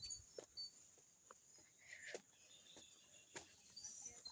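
Near silence: faint rural outdoor ambience with a few soft scattered clicks and brief faint high chirps.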